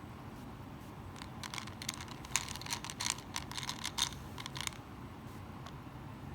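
A quick run of small clicks and crackles, lasting about three seconds, from jelly beans being pressed down into chow mein noodle nests in a muffin tin, over a low steady hum.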